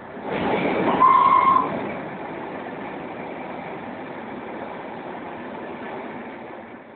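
Running noise of a steam-hauled train heard from an open carriage window while passing through a tunnel. The noise swells suddenly near the start and stays loud throughout. The locomotive gives a short, steady whistle about a second in.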